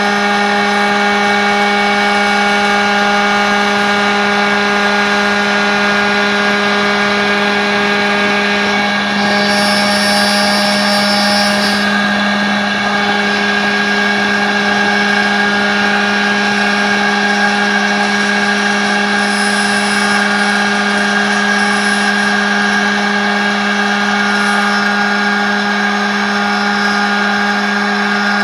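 CNC router spindle running with a steady high whine while its end mill cuts a pocket into a laminated hardwood block, with a hissing cutting noise. About nine seconds in, for a few seconds, the tone shifts and a higher hiss joins.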